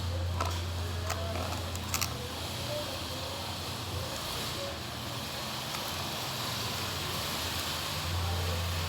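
Slime being stirred with a fork in a bowl, with a few sharp clicks in the first two seconds, over a steady low rumble that fades and returns.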